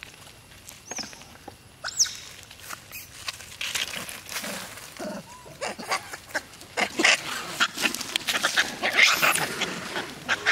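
Long-tailed macaques squealing and screeching: a couple of short, high, falling squeals about a second and two seconds in, then a busy run of harsh screeches in the last few seconds.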